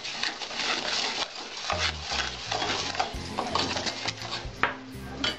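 A spoon stirring and scraping a thick pineapple and sugar paste around a steel kadai in quick repeated strokes.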